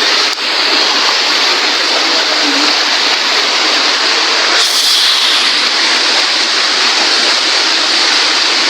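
Waterfall water rushing close by, a loud, steady noise, with a brief sharper burst about halfway through.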